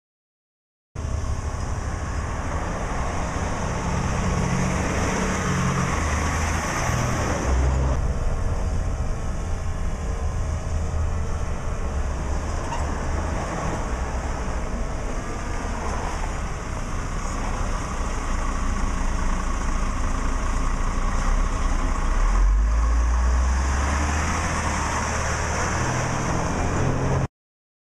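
Cummins 6CTA8.3 turbo diesel of an M931A2 5-ton 6x6 military tractor truck running as the truck drives. The sound starts about a second in and cuts off suddenly near the end.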